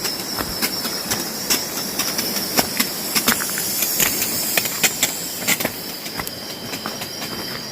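Insects droning steadily at a high pitch, with many irregular sharp clicks and light crunches over it.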